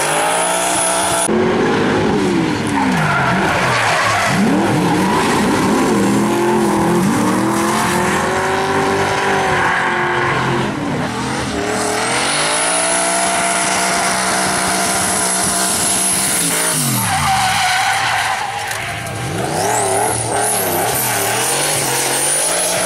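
Drift cars sliding through corners: engines revving hard, rising and falling with each slide, with a few seconds of steadily held high revs in the middle, over tyres screeching on the tarmac.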